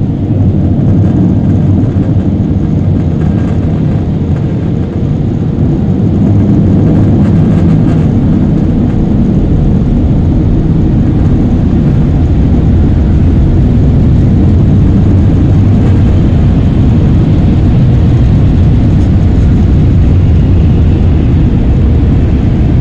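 Car wash air-dryer blowers running, a loud steady rushing drone of air blasting over the vehicle, heard from inside the car's cabin. It grows louder about six seconds in.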